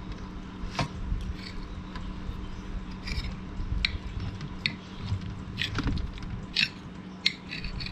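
Eating sounds at a meal: scattered sharp clicks and scrapes of utensils against dishes, with chewing, over a steady low hum.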